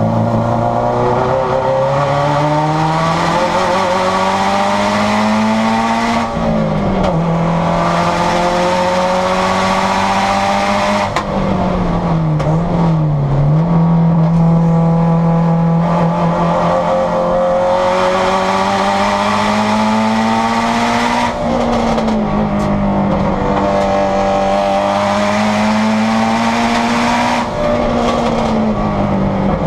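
Turbocharged Subaru STi flat-four race engine heard from inside its stripped, caged cabin, pulling hard at speed on track. The pitch climbs and drops sharply at an upshift about six seconds in, sags and recovers around twelve to thirteen seconds, and climbs again with further shift drops near twenty-one seconds and near the end.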